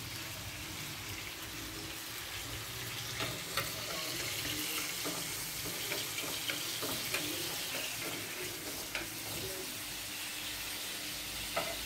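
Tomato pieces sizzling as they are stir-fried in a frying pan, a steady hiss with a few light clicks of the utensil against the pan.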